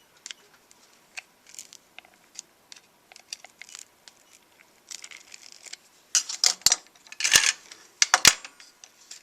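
Small plastic clicks and scrapes as a Flip camcorder's casing is pried apart with a tool, faint and scattered at first, then a cluster of loud sharp snaps and clicks about six to eight seconds in as the clipped part comes loose.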